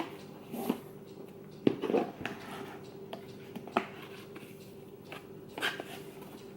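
Paper and cardboard being handled as a wrapped box is opened: scattered short rustles and taps. A faint steady hum runs underneath.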